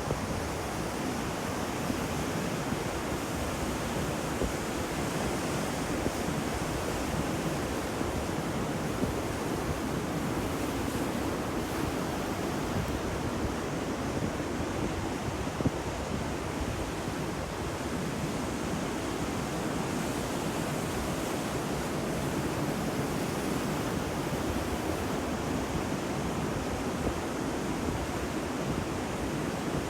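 Sea surf washing on a shore, a steady rushing noise with no distinct breaks.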